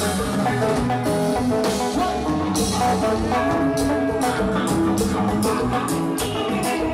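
Kompa band music: guitars and bass over a drum kit keeping a steady beat.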